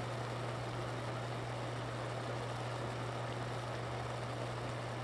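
A pot of instant ramen simmering on an electric cooktop: soft bubbling over a steady low hum.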